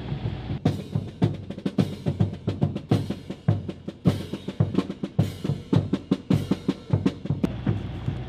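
Marine Corps band drum line playing a marching cadence: crisp snare strokes and rolls over bass drum beats. It starts abruptly just under a second in and breaks off near the end.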